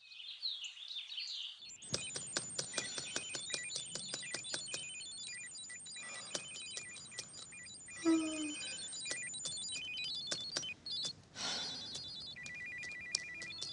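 Electronic computer sound effects: rapid stepping beeps and blips over quick sharp clicks of fast typing on a laptop keyboard. A falling electronic swoop comes about 8 seconds in. The first second and a half holds short high chirps like birdsong.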